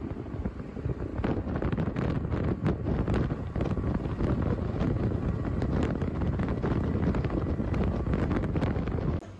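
Wind buffeting and rushing over a phone microphone on a motor scooter moving at road speed, loud and irregular. It cuts off abruptly shortly before the end, giving way to a much quieter background.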